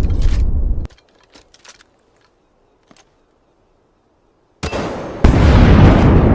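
A loud, deep booming noise that cuts off suddenly about a second in. After a near-silent gap with a few faint clicks, another loud boom starts near the end and jumps louder a moment later.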